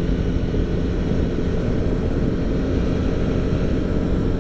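Motorcycle running at a steady pace while being ridden: an even, rough rumble with no change in engine speed.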